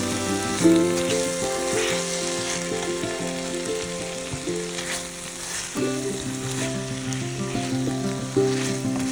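Pieces of pork frying in oil and a thickening tomato-onion sauce, sizzling steadily in a pan and stirred now and then, with soft background music underneath.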